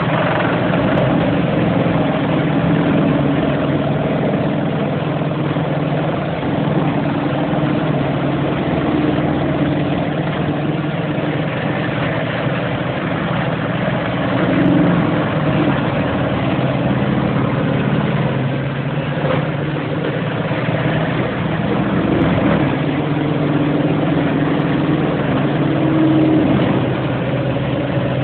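Morbark 4600 XLT horizontal grinder running: a loud, steady, heavy mechanical drone from the machine and its spinning toothed rotor, with small swells in level.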